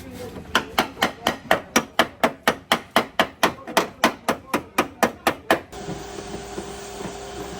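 Hammer beating out a car body panel in a fast, even run of about twenty strikes, roughly four a second, which stops about two-thirds of the way through. A steady machine hum follows.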